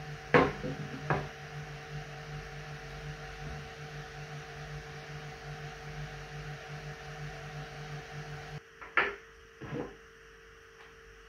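Steady electrical hum with a low pulsing undertone that cuts off suddenly about eight and a half seconds in. Two sharp knocks come near the start and two more near the end as the jetpack and its cables are handled.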